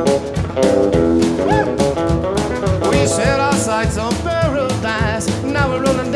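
Upbeat country-style song with a steady drum beat, and a lead line of bending notes coming in about halfway; no singing.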